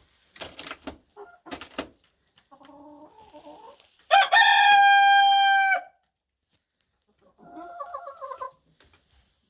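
A rooster crowing once, loud and about two seconds long, starting about four seconds in. Softer chicken calls come before and after it, and a few sharp knocks fall in the first two seconds.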